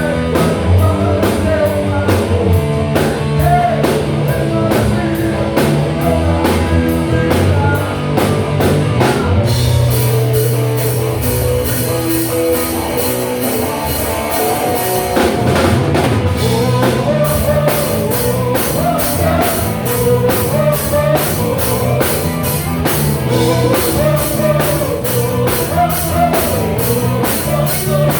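A live rock band playing, with drum kit, bass and electric guitar and a steady cymbal beat of about two to three strokes a second. About ten seconds in, the cymbals open into a fuller wash.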